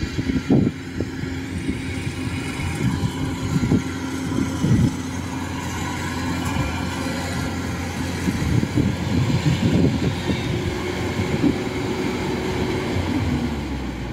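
Rice combine harvester running steadily as it drives over the stubble once the cutting is finished, its engine and machinery giving a constant hum with a held whine, plus uneven low rumbles.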